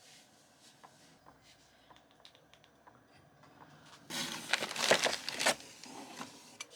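Handling noise: a few faint clicks, then a loud crinkling rustle about four seconds in that lasts about a second and a half.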